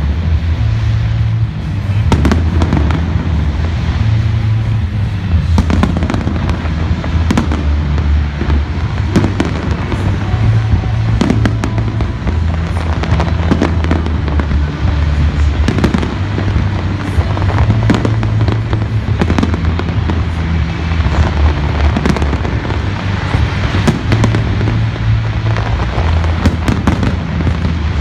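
Large fireworks display: a continuous barrage of bangs and crackles, many every second, over loud music with a heavy bass line.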